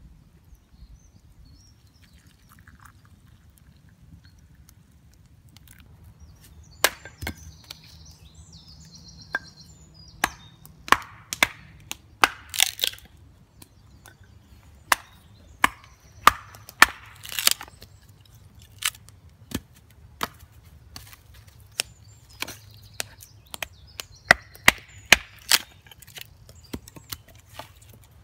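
Hatchet chopping and splitting sticks on a log chopping block. From about seven seconds in there is an irregular series of sharp wooden chops, some in quick pairs, as the pieces split off.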